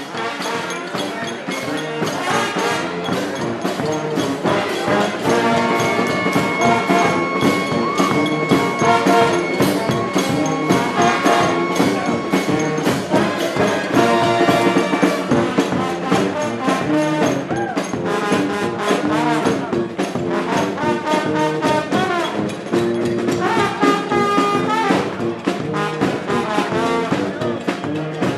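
A street brass band playing a tune, with horns holding and moving between notes over a regular rhythm.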